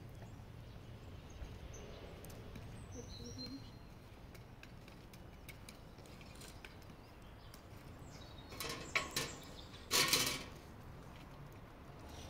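Faint outdoor background with a few short bird chirps, then, about nine seconds in, a brief clatter of metal cookware, several sharp strokes over a second or two.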